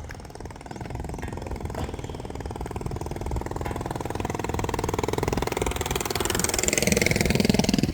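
A vehicle's engine running as it approaches, growing steadily louder and passing close by near the end.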